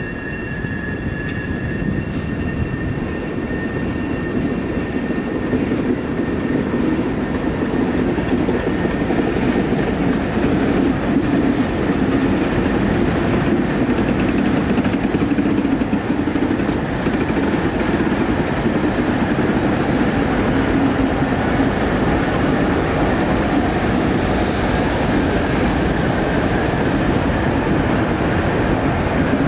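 A freight train led by several six-axle Alco and MLW diesel locomotives passes close by, their engines running with a steady low drone that grows louder over the first several seconds as the units draw near. A thin wheel squeal rings for the first few seconds.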